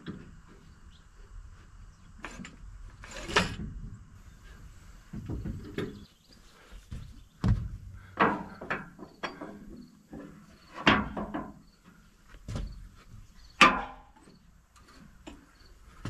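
Handling noises around an old tractor engine: scattered knocks, clunks and scrapes at irregular intervals. The sharpest knock comes near the end, with another strong one about three seconds in.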